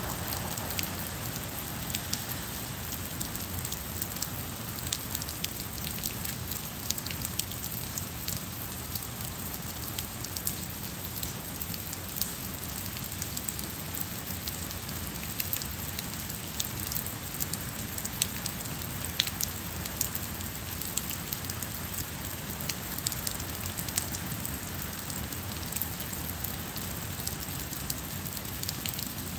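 Steady rain: a constant hiss with many sharp ticks of individual drops landing close by.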